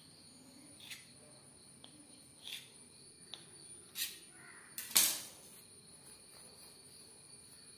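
A steel kitchen knife cutting through soft wheat dough and knocking on a stone countertop, five short knocks over a few seconds. The loudest comes about five seconds in, as the knife is set down on the counter. A steady high-pitched whine sounds underneath.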